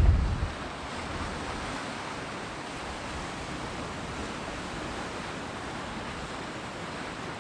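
Sea surf washing on the shore, a steady even hiss. A gust of wind rumbling on the microphone dies away about half a second in.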